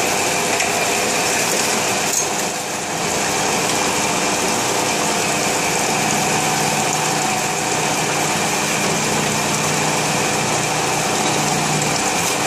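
Ore-separation spiral machine running steadily: an even motor hum with a few fixed tones, over the rush of slurry water swirling in its tank.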